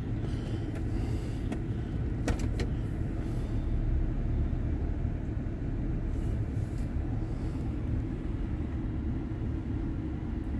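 GMC Yukon's V8 engine idling, heard from inside the cab as a steady low hum, with a few faint clicks about two seconds in.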